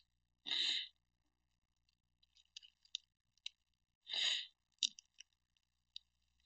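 Two short, loud breaths into a close headset microphone, about three and a half seconds apart, with faint clicks of trading cards being handled in between.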